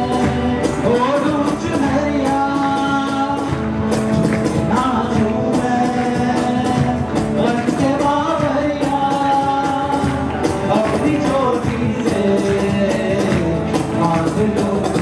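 Live band music: acoustic and electric guitars with drums and a cymbal keeping a steady beat, and a gliding lead melody over them.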